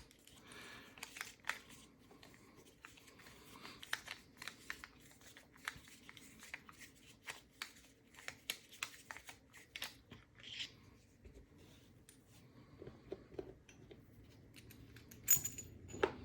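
Small metal clicks, taps and light scrapes as a padlock is taken apart by hand with a small tool, with one sharper, ringing metallic clink near the end.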